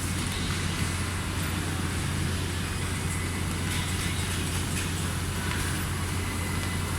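Large-area rotating-head CNC sewing machine running, a steady mechanical hum with a constant whirr and no changes in pace.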